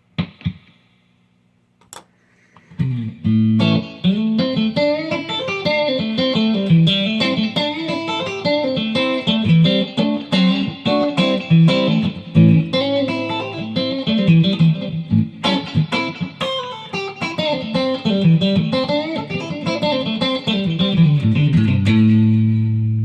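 Custom-built Stratocaster electric guitar played with the selector in the second position and the tone rolled back, so all three pickups are on. After a couple of short plucks and a brief pause, a run of picked notes and chords starts about three seconds in and ends on a chord left ringing near the end.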